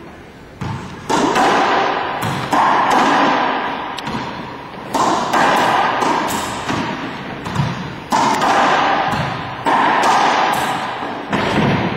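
Racquetball rally in an enclosed court: the ball smacking off racquets and the walls about nine times, each hit ringing out with a long echo.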